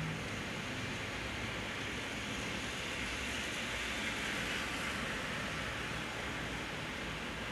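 Heavy rain pouring onto a road, a steady hiss that grows a little louder for a couple of seconds in the middle.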